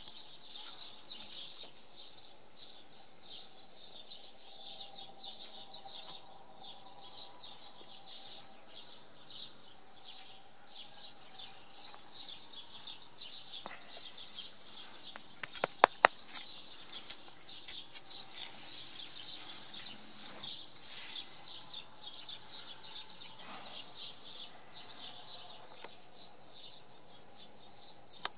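Birds chirping and singing steadily, a dense chorus of short high calls. A quick run of sharp clicks about halfway through is the loudest sound.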